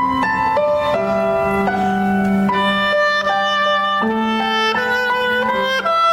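Instrumental music: a melody of held, steady notes over sustained chords, moving to a new note about every half second to a second.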